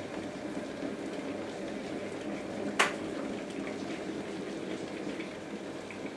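Kettle heating water, a steady rushing hiss with faint ticks, broken by one sharp click about three seconds in.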